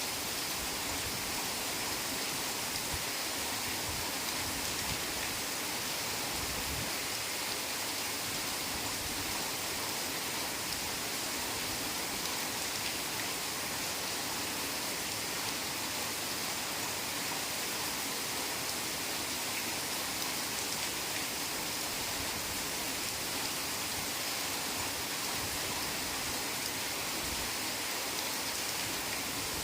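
Heavy rain falling steadily in a forest, a dense even hiss of countless drops with no distinct individual hits.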